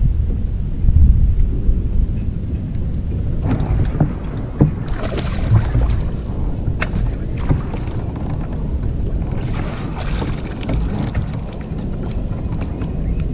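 Wind rumbling on the microphone, with two bouts of water splashing, about three and a half seconds in and again near ten seconds, as a hooked bass thrashes at the surface and is scooped into a landing net and swung aboard dripping. A few sharp knocks come in between.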